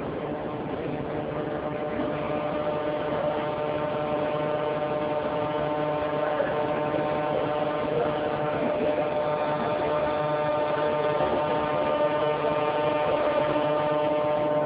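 Subway platform ambience dominated by a steady electric hum of several held tones, slowly growing louder.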